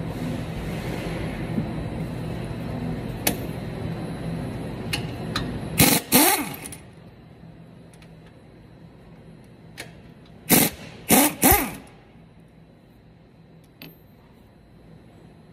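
Impact wrench run in short bursts on the brake caliper bolts of a Dodge Ram 1500's front hub: two bursts about six seconds in, then three quick ones around eleven seconds, each dying away with a falling pitch. A steady low shop hum sits underneath and fades as the first bursts come.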